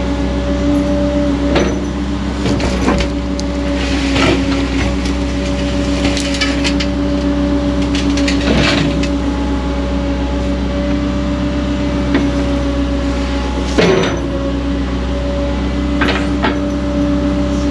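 Excavator engine running steadily under load while the bucket digs, with scattered knocks, clatters and scrapes as it strikes rock and stones in the ground.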